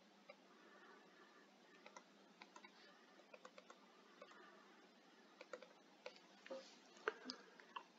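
Faint, irregular clicks and taps of a stylus pen on a tablet screen as words are handwritten, a few sharper taps near the end.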